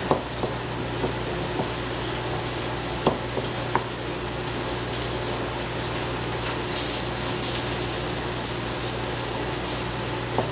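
Food sizzling in a frying pan: a steady hiss over a low hum, with a few light clicks and taps of a utensil, the sharpest about three seconds in.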